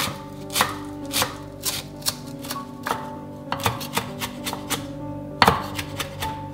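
Chef's knife chopping fresh cilantro on a wooden cutting board: sharp, uneven knife strikes about twice a second, the loudest near the end. Background music with soft held notes plays underneath.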